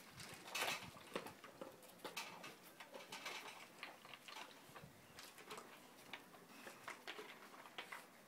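Two dogs eating food out of plastic feeders, a paw-shaped puzzle feeder and a green slow-feeder, making faint, irregular clicks and ticks of kibble and plastic as they nose and lick at them. The noise is a little busier about half a second in.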